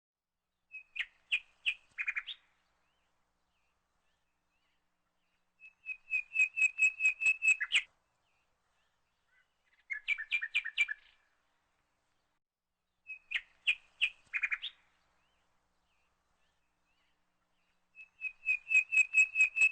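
Bird chirping in five short bouts of quick, repeated chirps that speed up within each bout, each bout one to two seconds long, with silence between.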